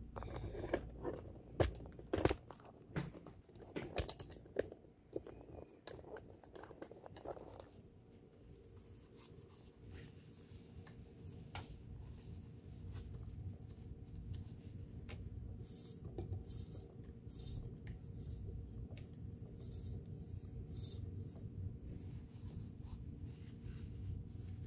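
Clicks, taps and scrapes of hands working on a Kenmore sewing machine during cleaning and oiling, thick for the first eight seconds or so. After that a steady low hum with a few faint ticks.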